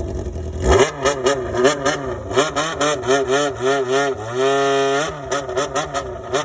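Yamaha XJR air-cooled inline-four through a Waltz Kikai exhaust, its throttle blipped in a rhythmic low-rev 'call': quick rises and falls in pitch about twice a second, broken by one held rev of under a second about halfway through, then more blips.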